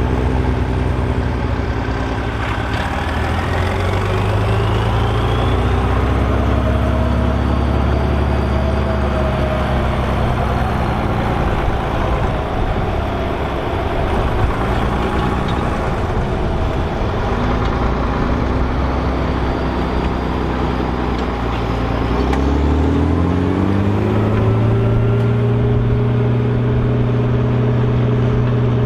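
Volvo BM 814 tractor's diesel engine running steadily, with a faint high whine rising a few seconds in. About 22 seconds in the revs climb and then hold at a higher steady pitch.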